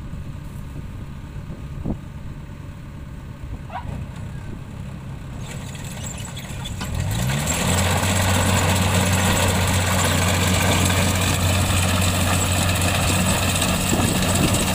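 Kubota DC-70 combine harvester's diesel engine running at low speed, then about seven seconds in it revs up and settles at a steady higher speed. The working harvester's rushing mechanical noise comes in with it and everything stays much louder after that.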